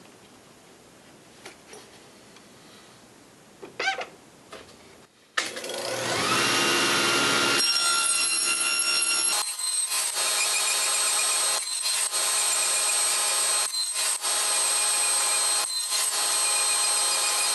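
A few faint wooden clicks as a board is seated in a box joint jig, then a table saw switched on about five seconds in, its motor and blade spinning up in pitch and then running steadily. The level dips briefly about every two seconds as the jig is worked across the blade.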